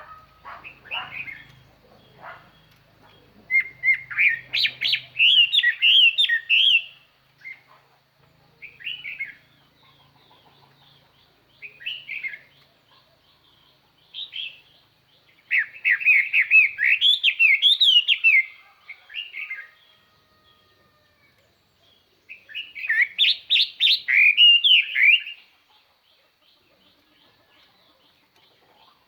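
Chinese hwamei (melodious laughingthrush) singing loud, rich, warbling phrases of rapid sliding whistles, in three long strophes separated by pauses with short calls between. This is a decoy bird singing to call in wild hwameis.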